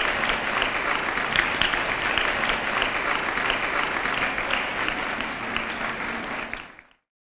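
Audience applauding, a dense crowd of hands clapping at a steady level, then fading out near the end.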